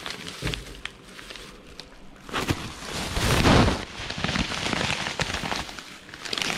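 Crinkling and crackling of a food wrapper as a Chinese rolled pancake is handled and bitten into, with a louder rustle about three seconds in.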